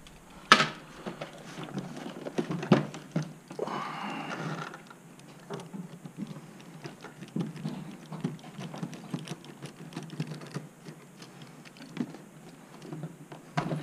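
Light, irregular clicks and rattles of small plastic and metal RC-truck parts and screws being handled and worked with a hex driver. Sharper clicks come about half a second in and near three seconds in.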